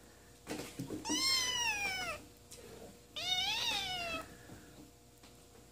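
A 4.5-week-old Balinese kitten meows twice. Each call is high-pitched, lasts about a second, and rises then falls in pitch.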